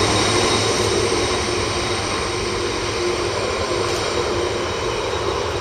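Boeing 747-400's four jet engines running at taxi power as the jumbo jet rolls past and turns away: a steady whine over a low rumble, slowly fading.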